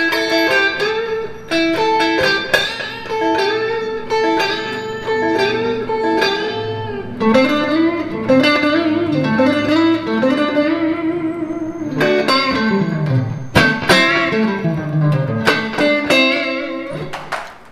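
Electric guitar with a clean tone playing blues licks built on string bends: picked notes pushed up a full step and let back down, many bends in a row in the middle, with a few sharp picked notes near the end.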